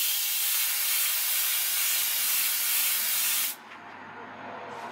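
Airbrush spraying paint: a loud, steady hiss of air and paint that cuts off about three and a half seconds in, leaving only a much fainter background.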